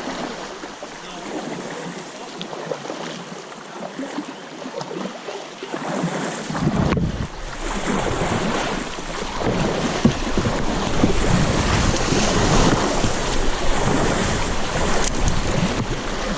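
Fast-moving, rain-swollen river water rushing and splashing around a kayak, with wind buffeting the microphone. It gets suddenly louder and fuller about six and a half seconds in.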